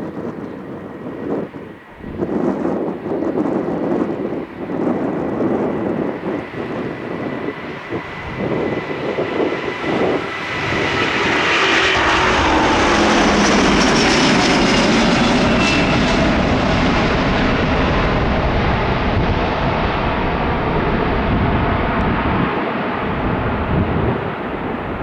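Jet airliner's engines passing close. The noise builds over the first ten seconds and peaks with a whine that slides down in pitch, then stays loud.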